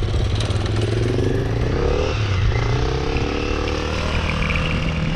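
Small pit bike engine running, its pitch rising as it revs up twice.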